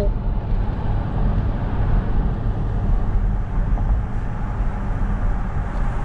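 A car driving along a town street, heard from inside the cabin: steady low road and engine rumble.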